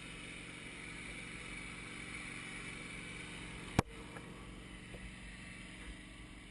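Wood-Mizer LT15 sawmill's gas engine running steadily at idle with the blade disengaged, and one sharp knock about four seconds in.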